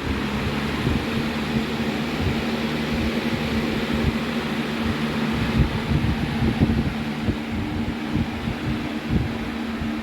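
Lasko Power Plus B20540 box fan running on high: a steady rush of air over a motor hum, with uneven low rumbling underneath. The owner calls the fan out of balance.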